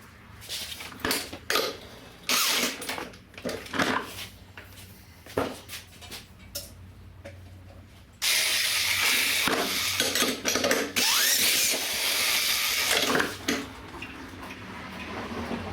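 Electric drill spinning a hard-starting small gasoline engine over in several short bursts, then in one longer crank of about five seconds starting around eight seconds in. The hard start comes from a lot of oil in the combustion chamber.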